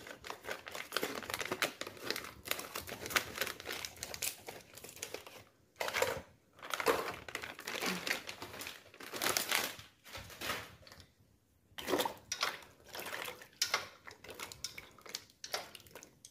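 Thin plastic packaging bag crinkling and rustling in irregular bursts with short pauses, as a bag of dried soy-protein 'ribs' is handled and emptied into a bowl of soaking water.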